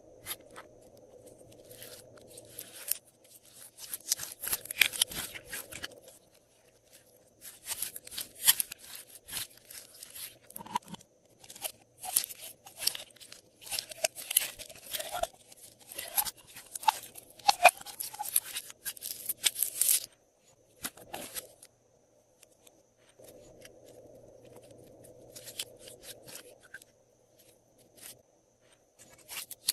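Glossy slime being worked by hand, crackling and clicking in bursts of a few seconds with short pauses between them.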